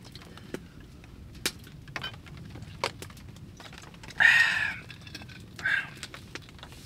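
Wood stove fire crackling inside a tent, with scattered sharp pops about once a second over a low steady rumble. About four seconds in comes a louder half-second breathy hiss, and a shorter, fainter one follows near six seconds.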